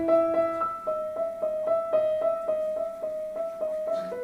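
Piano music: a steady run of quick notes, about four a second.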